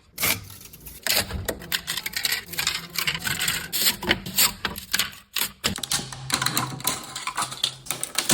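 Rapid, irregular mechanical clicking and clatter, with a low steady hum underneath that strengthens about six seconds in.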